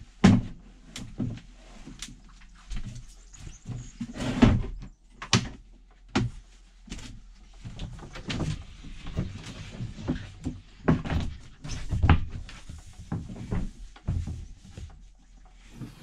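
Irregular knocks and thumps of the van's hinged partition panels being swung round and fixed into place as shower walls; the loudest thump comes about four and a half seconds in.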